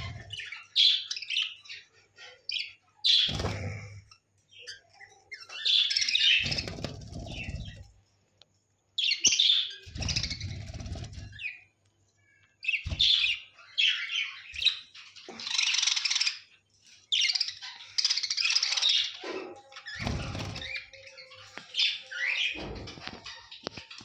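Budgerigars chirping and chattering in short bursts, with several brief spells of wings flapping.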